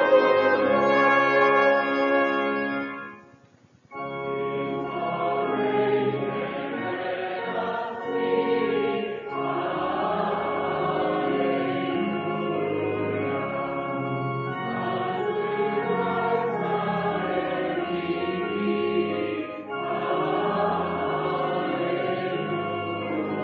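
Church organ accompanying many voices singing a hymn in sustained chords, with a short pause between phrases about three seconds in and a brief dip later on.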